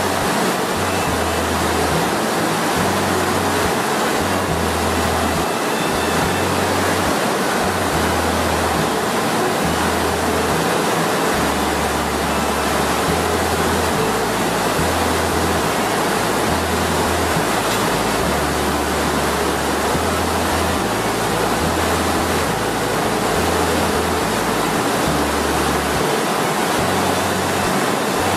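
Steady rush of river water pouring over and through a bamboo fish weir, with the bass notes of background music stepping underneath.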